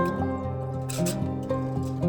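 Background music: a melody of pitched notes changing about every half second over held low notes.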